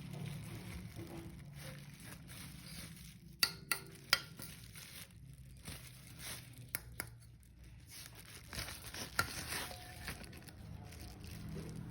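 Handling of a new car thermostat and its plastic packaging: crinkling and rustling, with a few sharp clicks and knocks of the part being set down or turned over, three close together about three and a half seconds in and more near the middle and later on.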